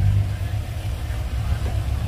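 Heavy diesel engine of earthmoving equipment running with a low, steady drone, easing off slightly just after the start.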